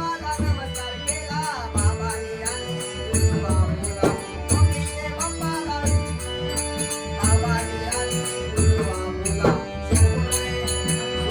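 Devotional bhajan music: a drum keeping a steady beat with small hand cymbals struck in time, under a wavering melody line.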